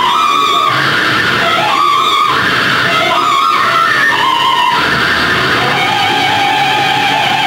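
Loud music led by guitar, with held notes that change pitch every second or so.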